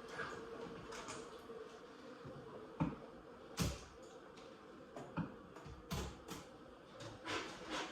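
Irregular knocks and clicks of boards and tools being handled and fitted, about half a dozen spread over several seconds, over a faint steady hum.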